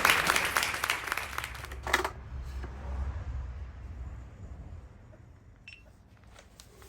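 Clapping dying away over the first two seconds, then a single knock and a few faint clicks over a low rumble.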